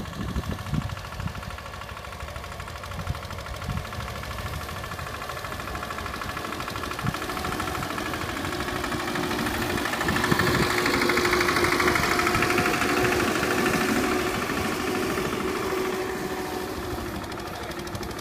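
Captain mini tractor's engine running steadily. It grows louder for a few seconds about halfway through, then eases back near the end.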